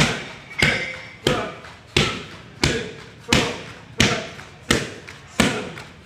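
Kickboxer's kicks and punches landing on a trainer's Thai pads: a sharp smack about every two-thirds of a second, ten in a steady rhythm, each with a short echo.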